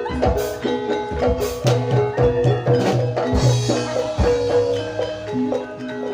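Jaranan Dor ensemble music: struck gamelan-style metallophones play a fast repeating melody over drum strokes and sharp cymbal-like hits, with a low held tone in the middle.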